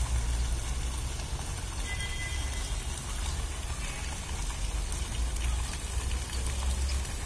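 Steady outdoor background noise: a low rumble with an even hiss over it, and a brief faint high tone about two seconds in.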